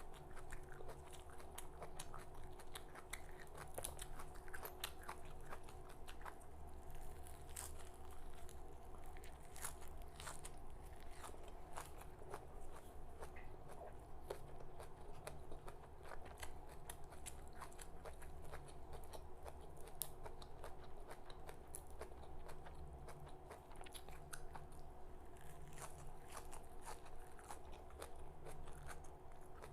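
Close-miked chewing and crunching of raw red amaranth leaves (lal chaulai saag), with many small crisp bites and crackles over a steady low hum.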